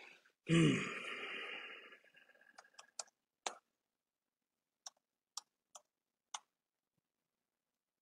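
A man's voiced sigh about half a second in, with falling pitch and a breathy exhale lasting over a second, then light, irregular clicks, about eight over the next four seconds.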